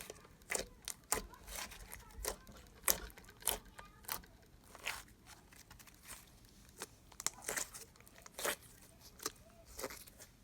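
Thick slime with clay mixed in, squished and stretched by hand, giving irregular sticky pops and crackles several times a second.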